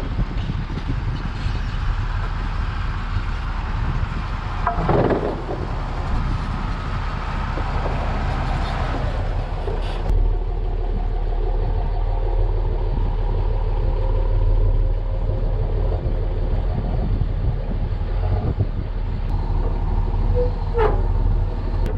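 A vehicle engine idling steadily, a low continuous hum.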